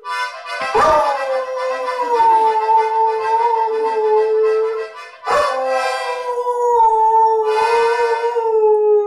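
Dog howling along to a child's toy accordion: two long howls, the first sliding in about a second in and the second starting just after five seconds, over the accordion's steady reedy notes.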